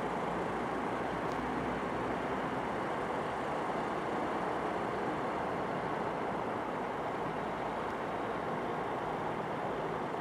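A bulldozer's diesel engine running steadily as it works, with a constant, even mechanical noise.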